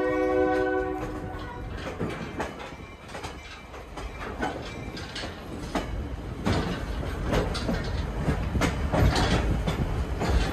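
A train horn's multi-note chord fades out about a second in. Then comes the low rumble of a passenger car rolling along the track, with irregular clacks and knocks of wheels over the rail joints.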